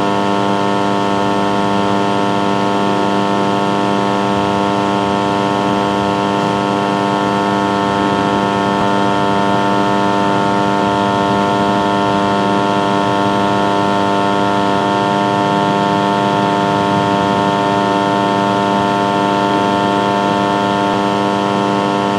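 Air-conditioner voltage stabiliser humming loudly and steadily at close range, a dense electrical hum of many fixed tones over a faint hiss, with no change in pitch or level.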